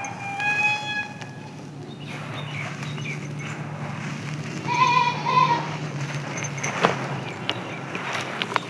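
Dry sand-cement chunks crumbling and crunching, with several sharp cracks near the end.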